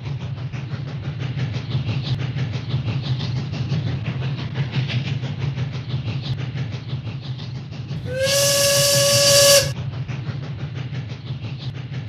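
A steam train running with a steady rhythmic rumble. About eight seconds in, a steam whistle blows once for about a second and a half with a hiss of steam; it is the loudest sound.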